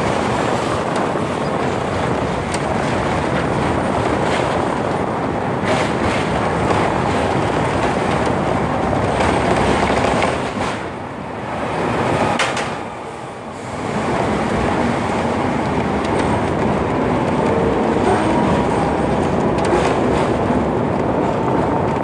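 Hong Kong double-decker tram running along street track: a steady rumble of steel wheels on the rails with a few sharp clacks. The noise dips for a few seconds in the middle as the tram takes a curve.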